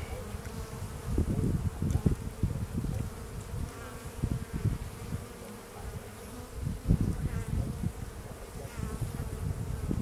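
Honeybees buzzing in a steady hum as a frame of brood comb crowded with bees is held up out of an open hive, with an uneven low rumble underneath.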